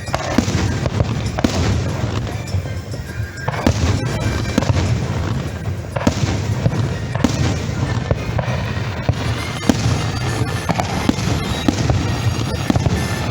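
Fireworks show: aerial shells bursting in a rapid series of sharp bangs and crackles over a continuous low rumble, with show music playing underneath.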